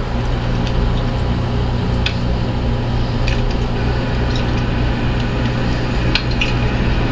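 International WorkStar 7600 truck's diesel engine idling, heard inside the cab: a steady low hum with a few faint clicks.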